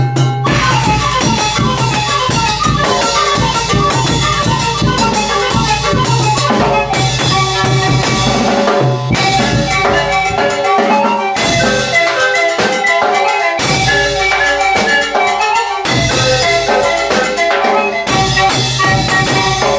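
Lakita band music: a fast melody on Andean zampoña panpipes over bass drum and percussion beats.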